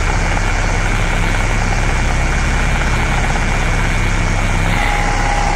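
Harsh power-electronics noise: a loud throbbing low drone under dense hiss, with a thin steady high tone held above it. A steady mid-pitched tone comes in near the end.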